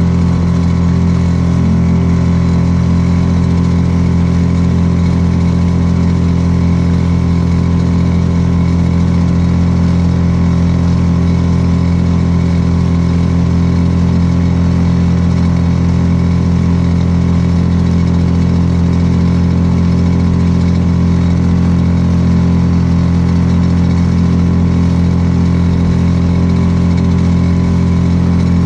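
Small outboard motor running at a steady cruising speed, driving a canoe along, with an unbroken even tone and no change in pitch.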